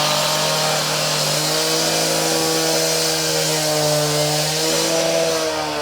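Concrete saw running steadily while cutting, its engine pitch wavering slightly up and down.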